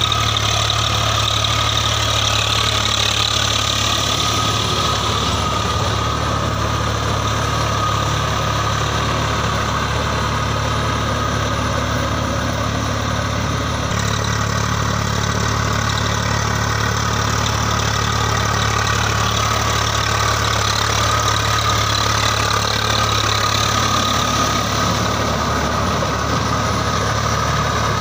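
Swaraj 855 FE tractor's three-cylinder diesel engine running steadily under load while it pulls a Shaktiman rotavator through wet paddy mud.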